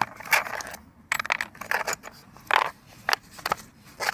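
Small metal hand tools clinking and rattling together as they are rummaged through and set down: a run of short rattles in the first two seconds, then a few single sharp clinks.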